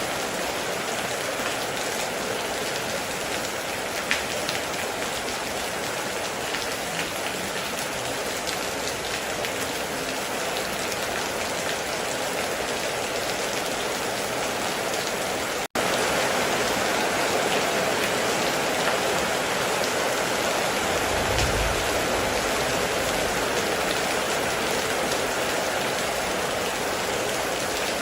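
Steady heavy rain, a dense hiss of falling drops with an occasional sharper drop strike. About halfway through there is a split-second break, after which the rain is slightly louder, and a short low rumble follows a few seconds later.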